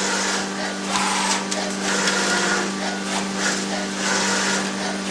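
A steady machine hum under repeated rushing, rubbing noise as a copper-clad circuit board panel is slid by hand across the roller conveyor into the CNC scoring machine's centering station.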